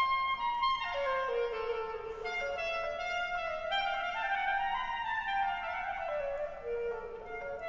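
Clarinet playing an unaccompanied solo melody. It holds a high note, drops away, then climbs in small steps and falls again.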